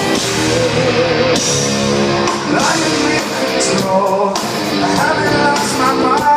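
Live rock band playing, with a voice singing held, wavering notes over the band.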